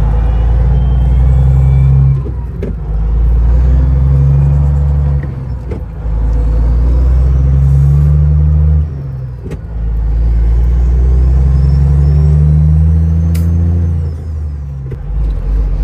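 Diesel semi truck engine pulling under load and working up through the gears. The engine sound builds in long pulls and drops off briefly between shifts, about two, six, nine and fourteen seconds in.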